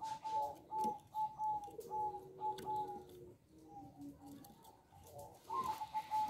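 Zebra dove (perkutut) cooing: a quick series of short, clear high notes over longer, lower coos, easing off midway and picking up again near the end.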